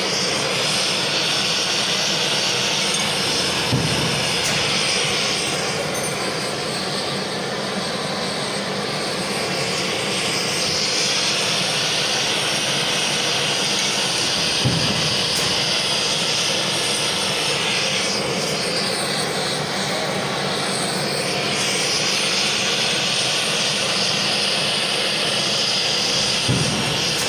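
Gas-fired forge furnace burner roaring steadily while heating stainless steel pieces, its hiss swelling and easing a few times. There are a few faint knocks, about 4, 15 and 27 seconds in.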